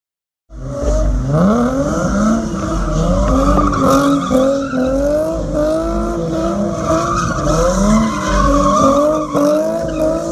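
A car doing donuts: the engine revs up and down over and over while the tyres squeal against the pavement as they spin. It begins abruptly about half a second in.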